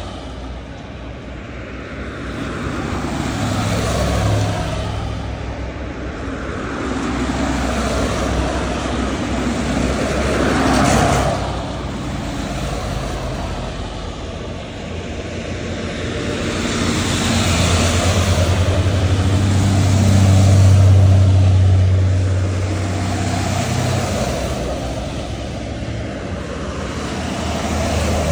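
Buses driving past in a procession, their engines and tyres swelling and fading as each one goes by, the loudest pass about three-quarters of the way through.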